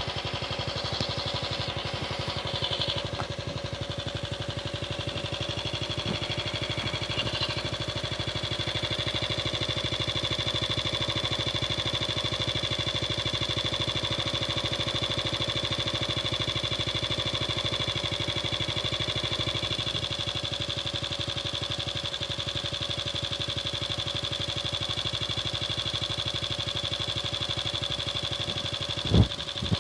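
Honda Super Cub C100's 50 cc four-stroke single-cylinder engine running steadily at an even speed after a carburettor overhaul meant to cure the rough running caused by rust in the carburettor. A single sharp knock comes near the end.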